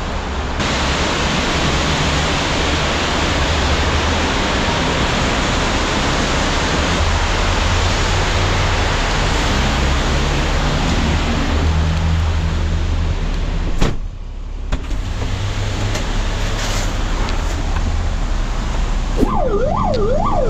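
Fire engine on the move: steady engine and road noise with a low rumble, briefly dropping with a click about 14 seconds in. About a second before the end a siren starts, wailing quickly up and down.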